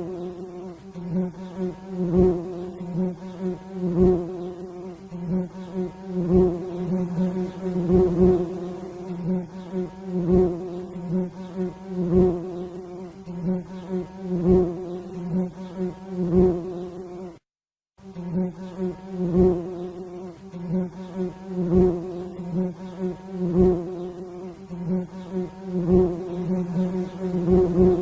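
Bees buzzing: a steady, pitched drone that swells with a low pulse about every two seconds, and breaks off briefly a little past halfway.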